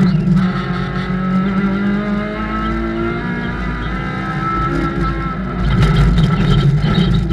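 Rallycross race car's engine running hard, heard from inside the cockpit, its pitch rising and falling as the driver accelerates and lifts. Near the end it gets louder and rougher, with a crackle of loose surface under the car as it runs from asphalt onto dirt.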